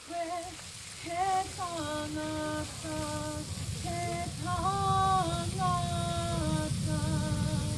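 A woman singing a Māori song solo and unaccompanied, holding long notes and gliding between them. A low rushing noise, the erupting geyser's spray, runs underneath and grows from about a second in.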